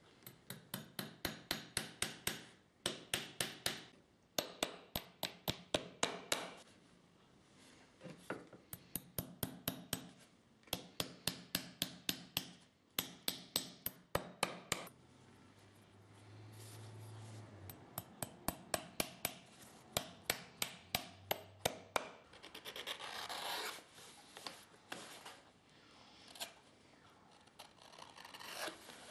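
Quick rhythmic strokes of a shoemaker's rasp working the edge of an insole on a plastic shoe last, in runs of about ten strokes at three to four a second, with short pauses between runs.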